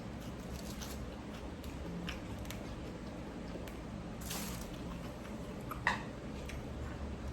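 A person eating noodle soup: faint chewing and slurping, with a few small clicks, the sharpest near the end, over a low steady hum.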